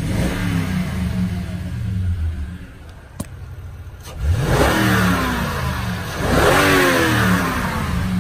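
2013 Toyota Tundra's 5.7-litre V8, with the stock intake box still fitted, running and then revved twice about four and a half and six and a half seconds in, each rev rising in pitch and falling back. A sharp click comes about three seconds in.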